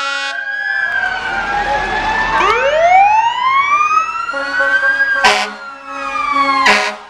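Emergency-vehicle sirens wailing, several overlapping tones rising and falling slowly in pitch, with two short, loud horn blasts about five and seven seconds in.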